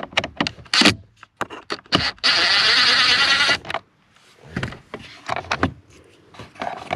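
A screw being driven out of the plastic HVAC heater housing with a long screwdriver. Scattered clicks of the bit on the screw come first, then a loud, even noise lasting about a second and a half from about two seconds in, then a few lighter taps as the screw comes free.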